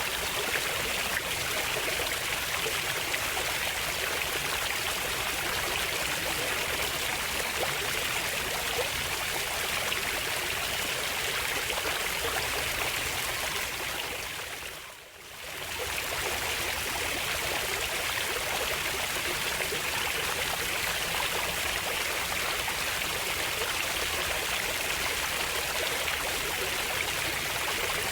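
Running water flowing steadily with a continuous rushing hiss, fading briefly out and back in about halfway through.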